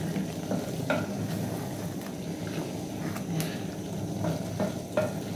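Wooden spoon stirring a thick potato and meat stew in an aluminium pot, scraping the bottom to keep the food from burning and sticking, over a low sizzle of the food frying against the hot pot. A few light knocks of the spoon against the pot.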